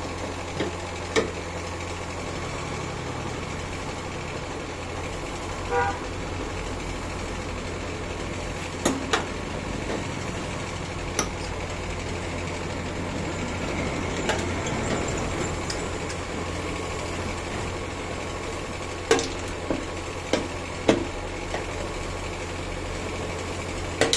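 Steady low hum under scattered sharp clicks and knocks from work on a motorcycle's fuel level indicator, with a short beep-like tone about six seconds in.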